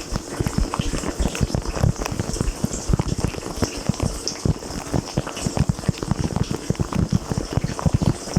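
Water from a dishwasher's spray arm drumming and splashing on a camera housing inside the running machine: a dense, irregular patter of low thuds over a hiss of spray.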